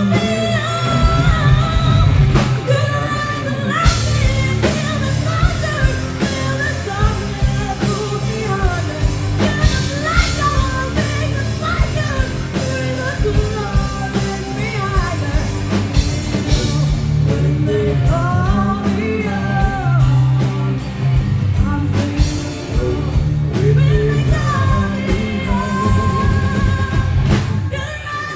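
Live rock band playing with a lead singer over guitar, bass and a steady drum beat; the song ends right at the close.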